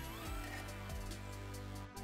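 Quiet background music with held low notes and gliding electronic tones.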